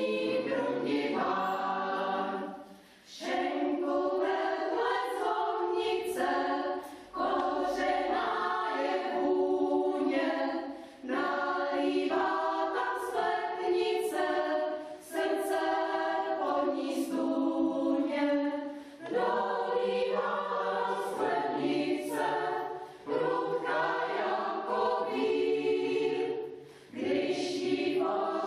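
Mixed chamber choir of men's and women's voices singing unaccompanied, in phrases of about four seconds with short breaks for breath between them.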